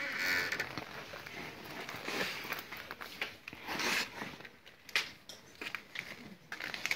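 Rustling and crinkling with scattered light clicks as tools and plastic are handled close by.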